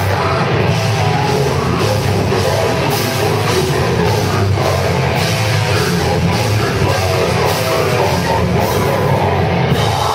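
Live heavy metal band playing loud, with electric guitar and drum kit, heard from the floor of the room.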